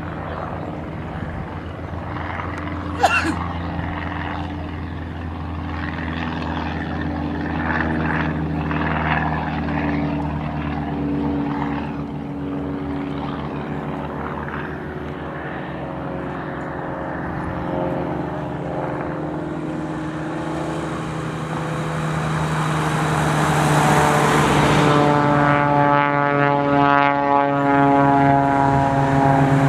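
Propeller airplane engines running steadily, with a growing, sweeping engine noise over the last ten seconds as a departing plane comes close, loudest near the end. A single sharp click about three seconds in.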